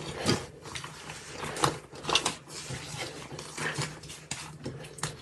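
Slime being squished and worked by hand or with a tool, making irregular sticky clicks and pops over a faint low hum.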